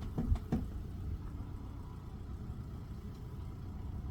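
An off-road vehicle's engine running with a steady low rumble, with a few sharp knocks in the first half-second.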